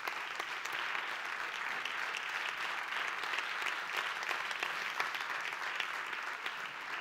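Theatre audience applauding steadily, many hands clapping at an even level, welcoming a guest onto the stage.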